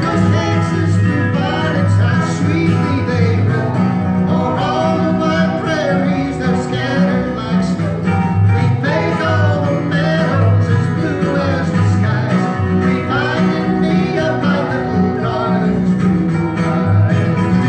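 Live country-style acoustic band playing: a strummed acoustic guitar, a lap-style slide guitar and an acoustic bass guitar, with a man and a woman singing. The bass notes pulse steadily under the melody.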